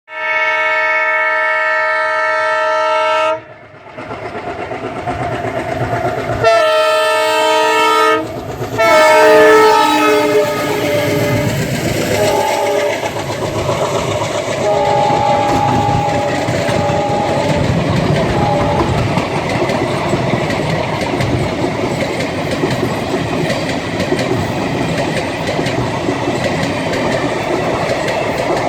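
Train horn blowing a loud chord three times, the third blast sliding down in pitch as the train passes, then the train running by with wheels clattering over the rail joints.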